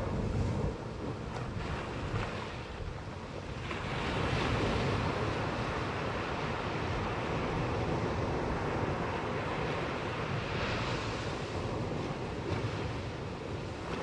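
Ocean surf breaking and washing up a sand beach around rocks, the wash swelling louder about four seconds in.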